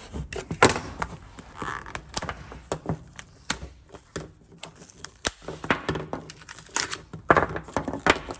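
Hard plastic case of a 12 V lithium motorcycle battery being cut with a utility knife and pried apart by hand: an irregular run of sharp clicks, cracks and knocks as the case sides break away.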